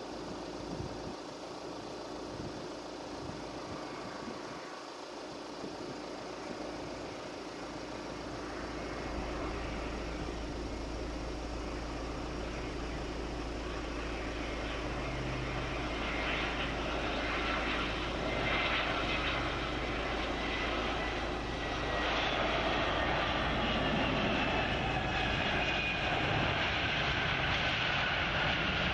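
Jet engines of a JetBlue Airbus A320 landing. The rushing engine noise grows steadily louder as the airliner comes in, steps up about two-thirds of the way through, and carries high whines that slowly fall in pitch near the end.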